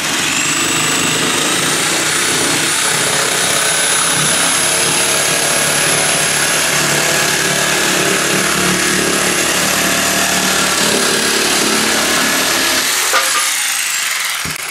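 DeWALT DW331 jigsaw cutting through 3/4-inch plywood at speed setting 5 with orbital action at 1: a steady sawing rattle under a high motor whine. Near the end the saw is switched off and the whine falls as the motor winds down.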